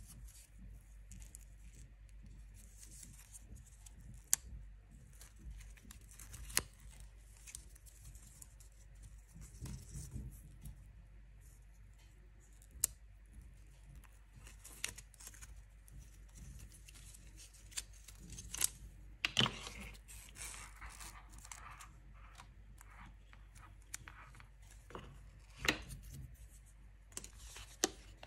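Paper wrap on a coiled braided USB-C cable being rustled and torn by hand, in irregular bursts with scattered sharp clicks and taps of the cable and its cardboard box.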